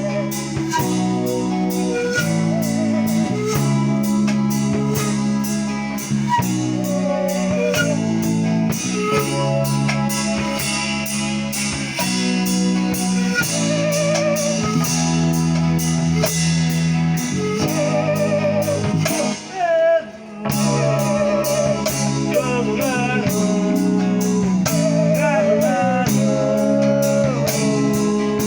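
Acoustic song with bamboo pan pipes: a singing voice over changing bass notes and a steady, evenly spaced beat. The music breaks off briefly about twenty seconds in, then carries on.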